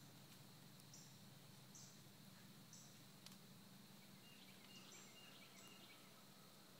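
Faint woodland ambience: short high chirps repeated roughly once a second over a steady low hum.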